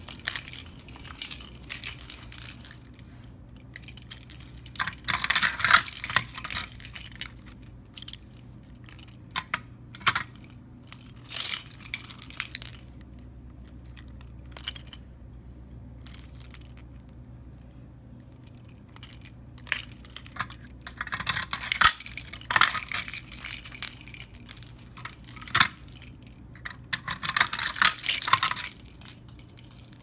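A bunch of metal keys on a keyring jangling and clinking as they are shaken and handled, in several bursts of a second or two with single clinks between, over a low steady hum.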